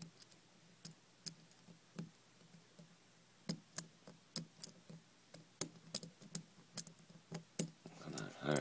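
A thin steel pick working at the back of a brass EMTEK lock cylinder, giving scattered light metal clicks and ticks at an irregular pace, as the tailpiece is worked off the cylinder.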